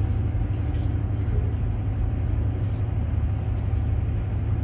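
Steady low rumble of city background noise with a faint steady engine-like hum.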